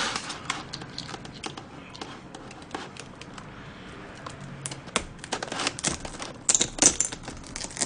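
Irregular small clicks and taps from a plastic knife being pushed down through a frosted cake, with a cluster of sharper clicks about five to seven seconds in.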